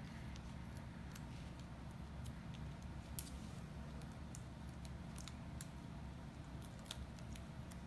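Faint handling of cardstock: scattered light taps and rustles as a paper piece is positioned and pressed onto a card, over a low steady hum. One slightly sharper tick about three seconds in.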